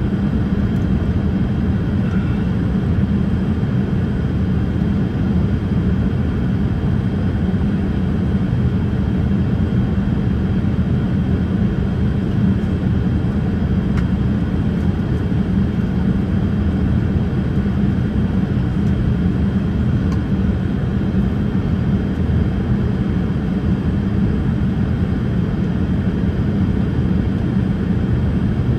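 Steady cabin noise inside a Boeing 787-8 in flight: an even, low rumble of engines and airflow with a faint high tone above it.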